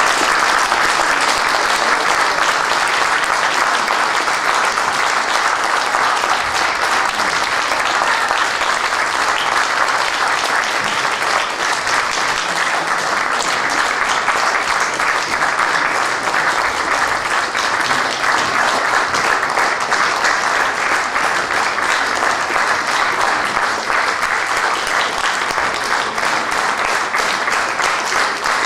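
Audience applauding steadily: dense, sustained clapping from a full hall.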